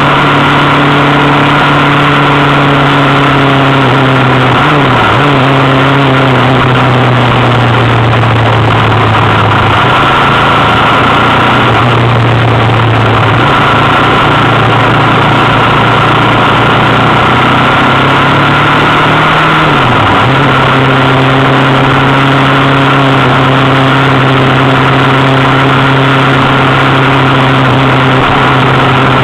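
Engine of the vehicle carrying the camera, running steadily at road speed with a constant rush of road and wind noise. Its pitch drops briefly twice, about five seconds in and again near twenty seconds.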